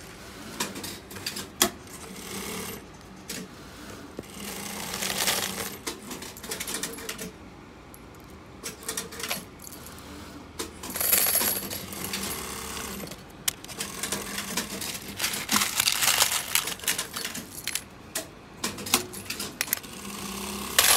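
Loose coated metal grommets and washers clinking and rattling as a hand scoops and sifts them in a plastic bin, with several louder rushes of clatter.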